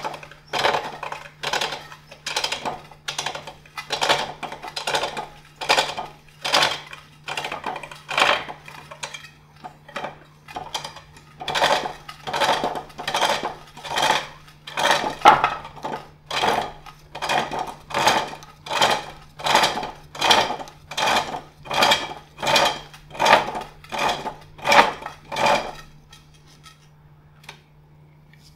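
Turning tool cutting an axe-hewn wooden bowl blank on a foot-powered pole lathe: a scraping cut on each treadle downstroke, about three strokes every two seconds. The cutting stops a couple of seconds before the end.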